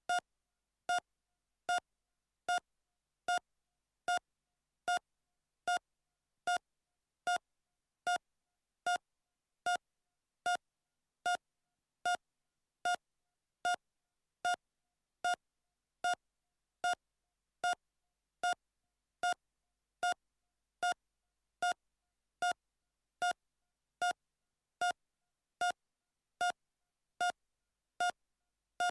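Heart monitor beeping steadily at a normal heart rate: a short, single-pitched beep repeating evenly, just over once a second.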